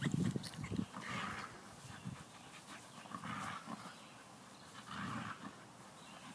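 Dog making short, soft vocal sounds about once a second, with a few low thumps in the first second.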